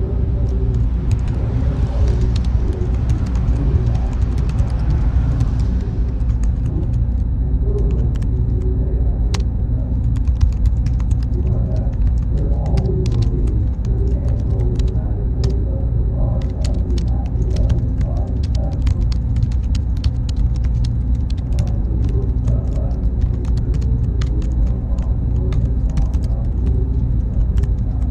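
Steady, loud low rumble with a faint high-pitched whine. From about six seconds in, it is joined by many small, irregular clicks.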